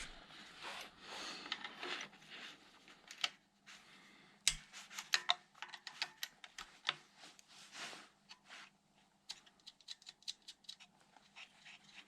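Hands working with small tools and parts: a run of light, irregular clicks, taps and snips with some rustling, busier in the second half, over a faint steady hum.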